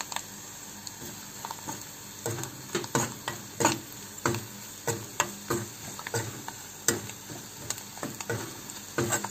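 A metal spoon stirs onions, spices and chilli powder frying in oil in a kadai, scraping and knocking against the pan over a faint sizzle. It is quieter for the first two seconds, then the strokes come about twice a second.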